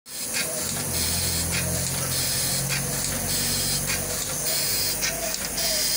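Small sheet-fed offset printing press running: a steady mechanical hum under the air hiss of its sheet feeder, with a hissing stroke repeating roughly once a second as sheets are picked.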